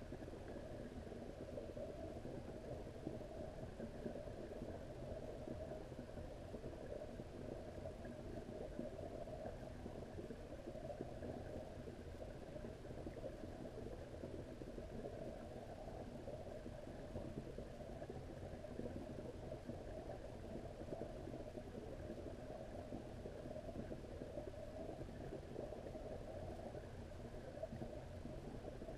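Faint, steady, muffled low rumble of pond water heard from a camera submerged underwater.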